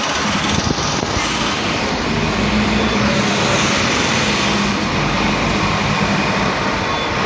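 Mercedes-Benz OC500LE single-deck bus's diesel engine pulling away from a stop, a steady engine note that strengthens a couple of seconds in as it accelerates. Its engine sound is one the uploader calls weird, like a big metal box.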